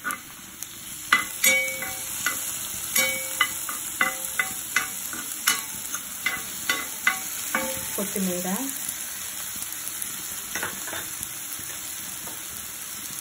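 Chopped onion, green chilli and tomato sizzling in oil on a tawa, with a metal spatula scraping and clicking against the pan as the mixture is stirred. The clicks come about twice a second for the first several seconds, then thin out, leaving a steady sizzle.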